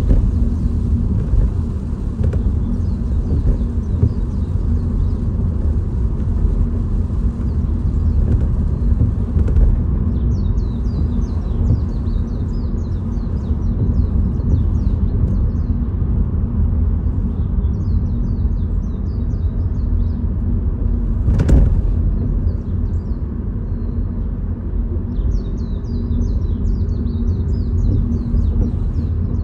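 Steady low rumble of a car driving, with bursts of short, high bird chirps coming and going from about ten seconds in. One sharp knock sounds a little past twenty seconds.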